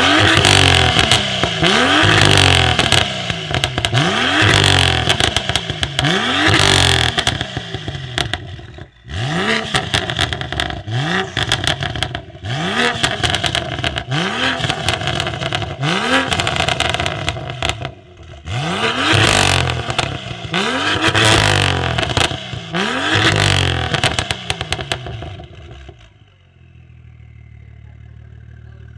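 BMW M2 F87's turbocharged straight-six, breathing through a decatted Fi valved exhaust, revved in quick blips about once a second. Loud crackles and pops sound between the blips. Near the end it settles to a quieter low rumble.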